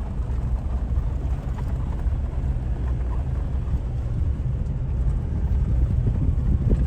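Vehicle driving, heard from inside the cab: a steady low rumble of engine and tyres.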